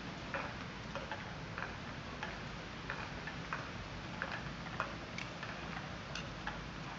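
Footsteps of wooden geta sandals clacking on paving at an easy walking pace, about one and a half steps a second, over a steady low background hum.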